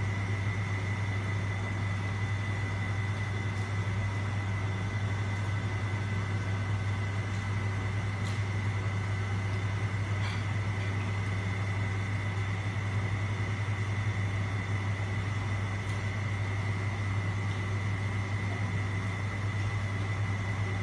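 Steady machine hum, low and unchanging, with a thin high whine over it, and a couple of faint clicks about 8 and 10 seconds in.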